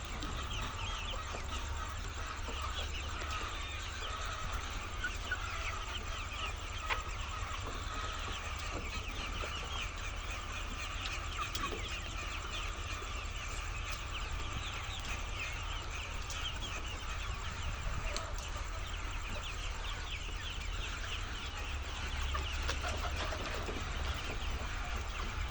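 A large flock of laying hens clucking and calling all at once, many overlapping short calls, over a low steady hum.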